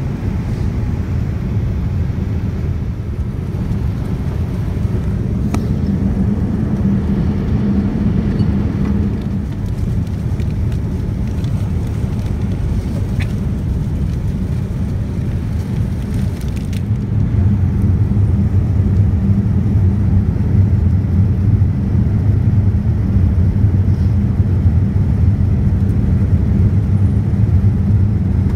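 Steady low rumble of a Boeing 787-9 airliner cabin in flight: engine and airflow noise with a low hum. About two-thirds of the way through it gets a little louder and the low hum grows stronger.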